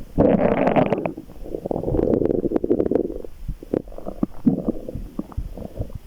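A person's stomach rumbling and gurgling in irregular swells. The loudest gurgles come in the first three seconds, then it settles into shorter, smaller gurgles.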